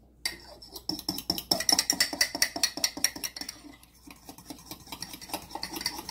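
A fork beating a runny egg batter in an enamel mug: rapid clinks and scrapes of metal against the mug's sides, several a second, starting about a second in and thinning out after about four seconds.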